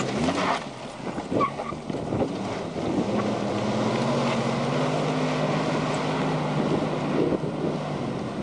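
Jeep Wrangler's engine running steadily at raised revs as it crawls up a rock slab, easing off near the end, with wind buffeting the microphone.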